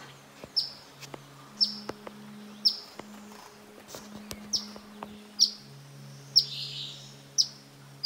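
Adult eastern phoebe giving sharp, short chip calls, about one a second. Each note drops quickly in pitch. A low, steady hum runs underneath.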